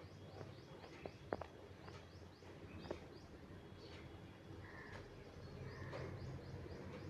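Faint bird chirping: quick runs of short high chirps, several a second, with two sharp clicks in the first few seconds.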